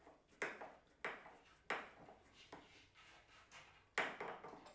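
Home-made wooden bench clamp knocking and clicking on its aluminium-tube post as it is worked by hand to test its grip: a series of sharp knocks with a short ring, three in quick succession, then a pause and a louder one about four seconds in.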